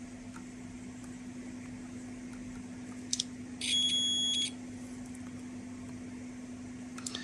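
Digital multimeter's continuity buzzer giving one high, steady beep of just under a second, just after a couple of light clicks, while a short-circuit check is being made. A faint steady hum runs underneath.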